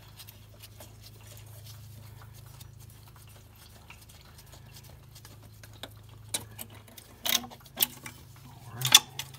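Ratcheting wrench clicking faintly as the last water pump bolt is worked loose, then a few sharper metal clinks from about six seconds in, over a steady low hum.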